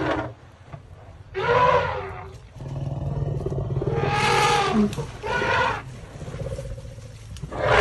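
African elephants calling loudly at the birth of a calf: a series of pitched calls, about four in all, the last and loudest starting near the end, over a low steady rumble.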